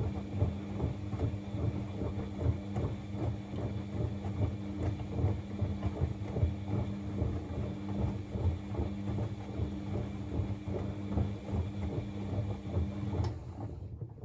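Bosch WFCX 2460 washing machine turning its drum with a wet blanket inside: a steady motor hum under uneven sloshing and soft thumps of water and laundry. The motor and sloshing stop about a second before the end.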